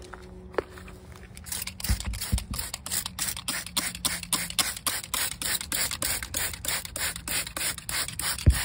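Hand trigger spray bottle squirting water onto dry compost soil in quick repeated pumps, about four sprays a second, starting about a second and a half in. A few light knocks come before it and in between.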